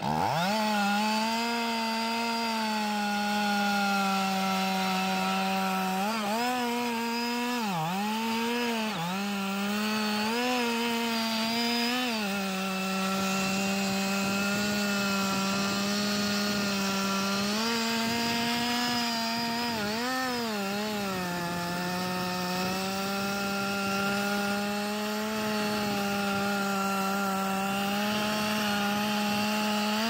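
Two-stroke Stihl chainsaw running at full throttle while cutting into the base of a large standing tree trunk. Its engine note holds steady, then sags and recovers several times in two stretches, about a quarter and about two-thirds of the way through, as the chain bogs under load in the cut.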